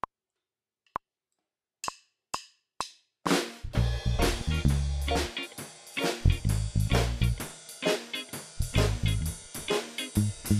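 Two short clicks a second apart and three separate drum hits, then from about three seconds in a drum kit plays a steady groove along with a reggae backing track that carries a deep bass line.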